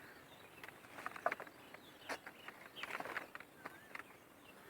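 Faint, irregular crackling and rustling of dry leaves and brush, with a few faint bird chirps.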